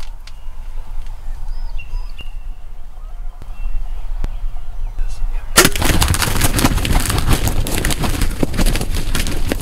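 Wild turkey's wings beating hard and fast, a sudden loud burst of flapping and thrashing that starts a little past halfway and keeps going.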